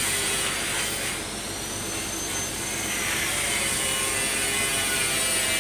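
Steady mechanical running noise like an engine, with a faint high whine that rises and falls about one to three seconds in.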